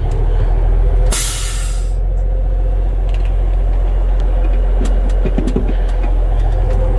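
Heavy diesel truck engine running steadily under load, heard from inside the cab, with a sharp hiss of released compressed air about a second in lasting most of a second. A few light clicks follow around five seconds in.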